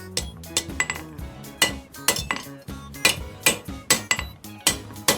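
Blacksmith's hand hammer striking a steel bar on an anvil, irregular blows about two to three a second, each with a short metallic ring. The bar is being forged slightly round.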